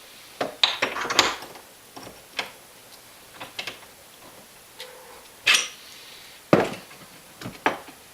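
Metal tools and hardware clinking and knocking on a wooden workbench: a string of sharp, irregular knocks, the loudest about a second in and again past the middle.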